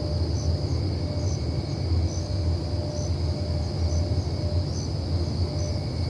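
A low, wavering rumble from the night sky, of unclear origin, which the recorder hears as the sky roaring. Crickets chirp steadily over it, with short chirps repeating about twice a second.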